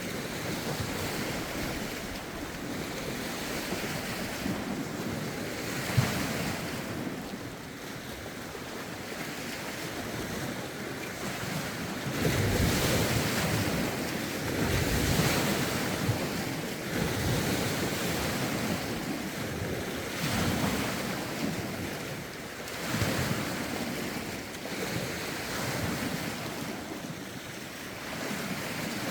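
Lake waves washing in against the shore, swelling and falling every few seconds, with wind gusting across the phone's microphone. A brief thump about six seconds in.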